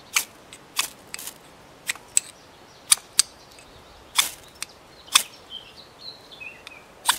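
Spine of a Stalowy Kosiarz bushcraft knife scraped down a ferrocerium rod to throw sparks: about ten short, sharp rasping strikes at an uneven pace, with a longer pause before the last one.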